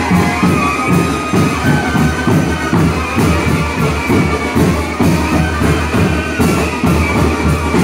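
Live brass band, with trumpets and a tuba, playing dance music with a steady beat and a sustained bass line.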